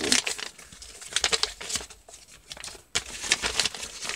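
A wrinkled sheet of paper crinkling and rustling in quick bursts as it is handled and folded into a paper airplane, with a short pause about three seconds in.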